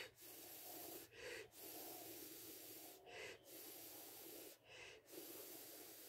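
A person breathing hard onto a DHT11 temperature-humidity sensor to warm it and raise its reading. About four long, faint breaths, each followed by a short, sharper one.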